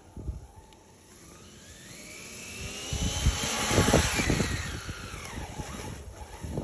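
Brushless electric motor of a Kyosho Blizzard RC tracked snow vehicle whining at high speed. The whine climbs in pitch and loudness to a peak about four seconds in, then falls away.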